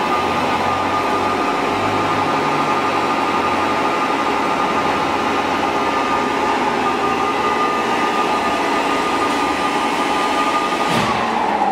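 A 42-inch Blanchard rotary surface grinder running under power: a steady machine whine and hum. Near the end one tone falls in pitch as a motor is switched off and coasts down.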